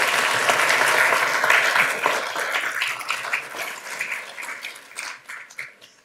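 Audience applauding, loudest in the first couple of seconds, then thinning out and dying away near the end.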